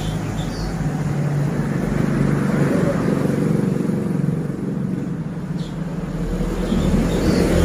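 Steady low rumble of a motor vehicle engine, swelling near the end.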